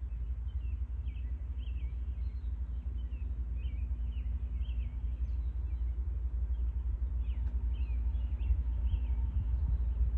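Low, steady rumble of a CSX freight train's diesel locomotives still far off, slowly growing louder as the train approaches. A small bird chirps repeatedly over it.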